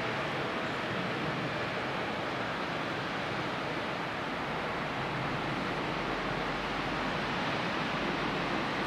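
Stadler electric train running past: a steady rushing noise of wheels on rails, with a faint motor whine fading out near the start.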